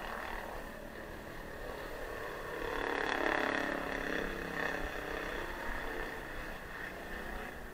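Street noise heard while riding a bicycle: a steady wash of wind and rolling noise. A motor vehicle's engine grows louder to a peak about three seconds in, then fades.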